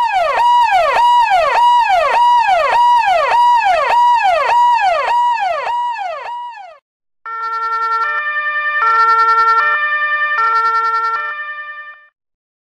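Ambulance siren sound effect. First comes a fast repeating falling sweep, about two a second, for roughly seven seconds. After a brief break it changes to a stepped hi-lo wail alternating between two pitches, which stops shortly before the end.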